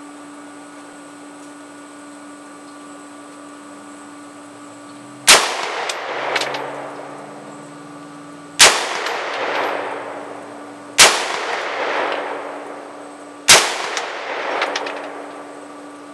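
Four gunshots a few seconds apart, each followed by a long fading echo.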